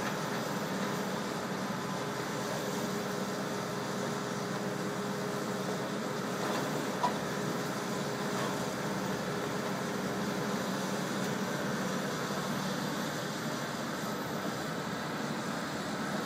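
Tracked excavator's diesel engine running steadily with a constant hum, with one brief sharp clink about seven seconds in.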